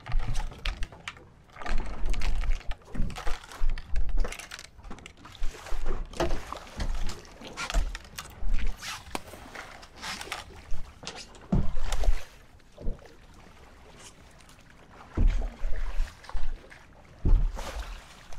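Irregular splashing and thuds at the side of a small boat as a hooked blue shark thrashes in the water while it is held by the trace, in uneven bouts with a short lull past the middle.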